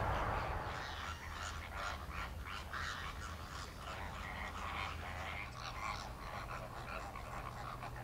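A flock of greater flamingos calling: a steady chatter of many short honking calls that sets in about a second in, over a low steady rumble.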